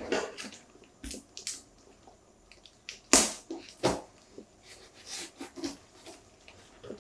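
Hands handling packaging and a carbon-fibre phone case: scattered rustles, taps and clicks, with two louder rustling knocks about three and four seconds in.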